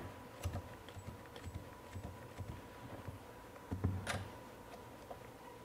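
Faint clicks and light knocks of a cordless ratchet and its socket being handled against steel nuts and a bolt board, with a sharper clack about four seconds in. No motor is heard running.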